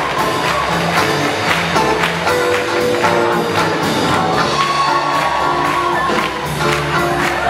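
Live swing band playing dance music with a steady beat carried by cymbal strokes, over held notes.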